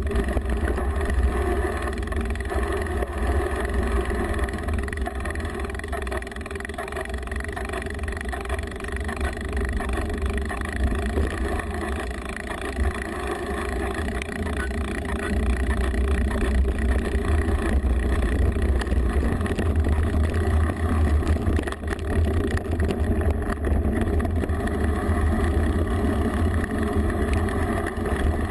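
Mountain bike rolling down a rough trail, heard from a GoPro mounted on the bike: steady low rumble and rattle of tyres and frame, with wind buffeting the microphone.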